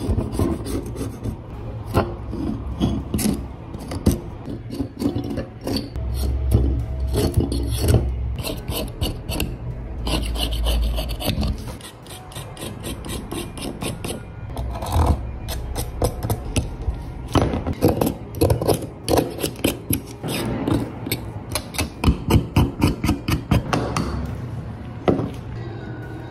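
Hobby knife blade scraping flaking rust and paint off the diecast metal body panels of a 1/18 scale model car, in many short, rapid strokes.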